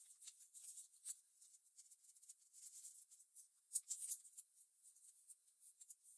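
Faint rustling and crinkling of a sheet of origami paper being folded and creased by fingers, with a sharper crackle a little under four seconds in.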